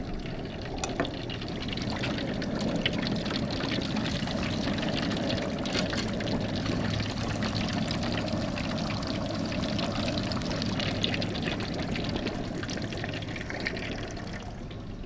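A whole chicken deep-frying in 350°F peanut oil in a turkey-fryer pot: the oil bubbles and sizzles hard, with dense crackling, easing a little near the end.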